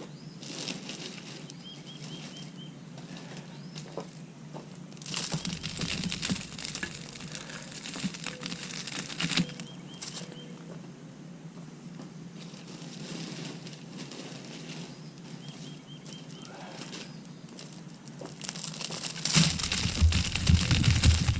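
Mulch being spread by hand: irregular bursts of rustling and crinkling, with a louder stretch of rustling and thumping near the end. Faint bird chirps in the background.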